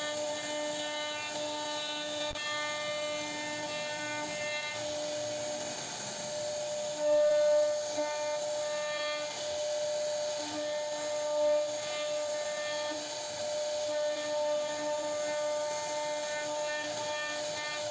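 CNC router spindle running at a steady high whine while its bit cuts into wood, the whine and the cutting noise swelling and easing as the bit moves through the carving.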